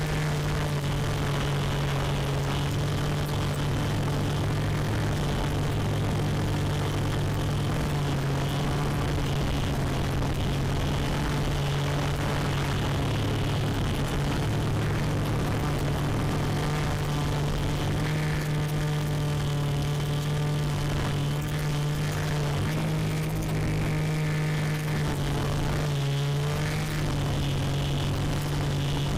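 Quadcopter's electric motors and propellers heard from its onboard camera: a steady buzzing hum that steps slightly in pitch a few times as the throttle changes.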